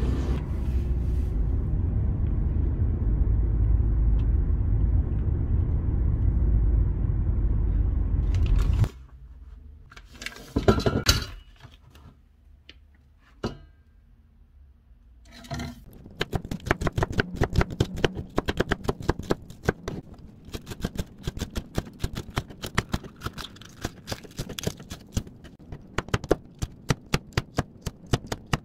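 A steady low rumble of a shopping cart rolling through a supermarket, then a few knocks and scrapes. From about halfway on, a chef's knife chops green chili peppers on a plastic cutting board in rapid, even strokes, each hitting the board with a sharp tap.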